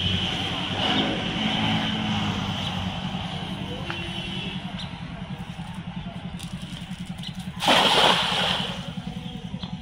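A thrown cast net lands on pond water with one loud splash about eight seconds in. Under it runs a steady low mechanical throb.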